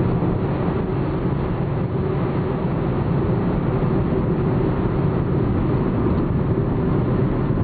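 Car cruising at freeway speed, heard from inside the cabin: a steady, even rush of road, tyre and engine noise with a low hum.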